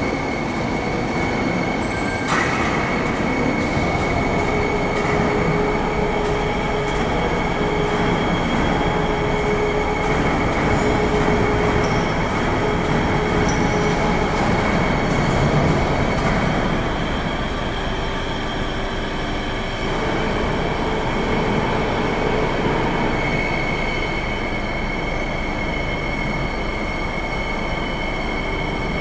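CNC sheet-metal folding machine's hydraulic oil pump running steadily, a mix of hum and hiss with a high, steady whine. There is a single sharp click about two seconds in.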